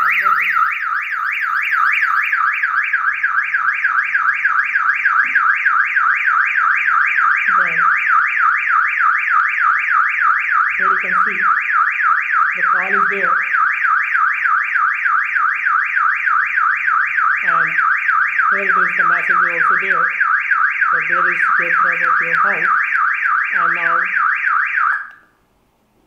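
Electronic horn siren of a home-made Arduino GSM security alarm sounding a fast warbling wail, set off by the PIR motion sensor while the system is armed: the security-threat alarm. It cuts off suddenly near the end.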